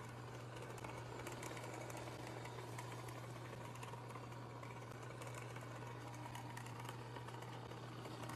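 Faint, steady hum of a small handheld electric appliance held to a cat's fur: one even low drone with a light hiss over it.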